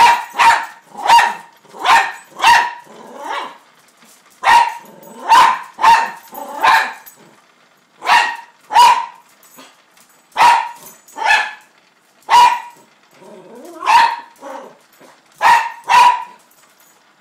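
Toy fox terrier barking in bursts of sharp, high-pitched barks, about twenty in all, in groups of one to six with short pauses between. This is defensive barking at a small moving toy bug on the floor.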